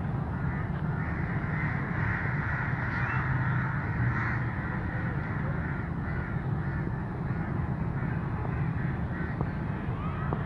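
Crows cawing over the low, steady rumble of approaching Pakistan Railways GU20 (GE U20C) diesel-electric locomotives.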